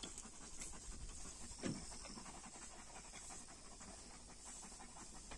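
Georgian shepherd dog (nagazi) panting fast and rhythmically, a dog cooling itself in the heat, with one short downward-gliding sound a little under two seconds in.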